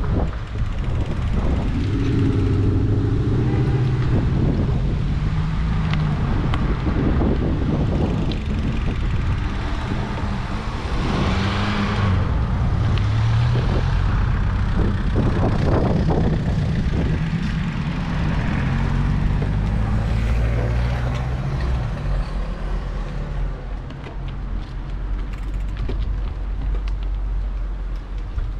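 City street traffic heard from a moving bicycle: engines of passing cars and other vehicles hum, their pitch rising and falling as they go by. A louder rush of noise comes about twelve seconds in.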